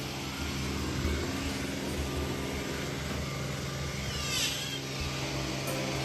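Robot vacuum running with a steady motor hum, with a brief high sweeping chirp about four seconds in.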